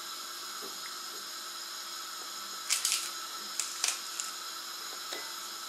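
Steady electronic hiss and whine of the camera's own recording noise, with a few short crisp crackles about halfway through.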